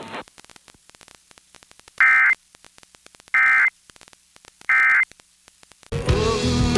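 Emergency Alert System end-of-message signal: three short, buzzy digital data bursts about a second apart, marking the end of the alert broadcast. Faint static crackles between the bursts, and music starts near the end.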